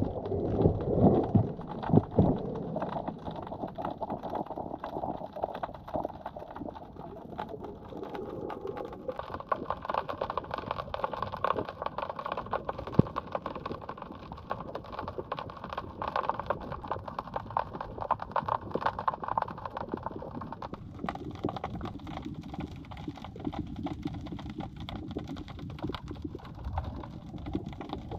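Underwater sound picked up by a GoPro camera lowered beneath a pier: a muffled wash of water full of a steady crackle of tiny clicks, with a few louder dull knocks in the first two seconds.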